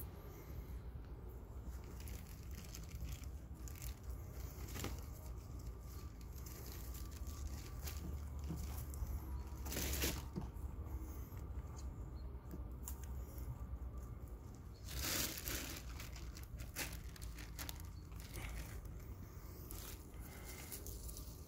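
Lop-eared rabbit chewing and tearing basil leaves, a run of small crisp crunching clicks, with rustling in straw bedding; two louder rustles come about ten and fifteen seconds in.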